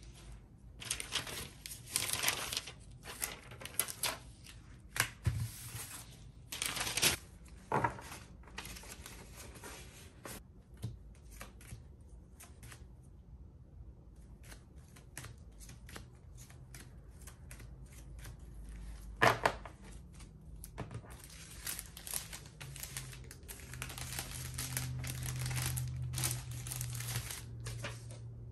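Plastic packaging crinkling and rustling in irregular bursts as a bubble mailer and clear plastic sleeves are handled, with a short quiet gap a little before the middle and one sharp click a little past two-thirds through. A low hum comes in near the end.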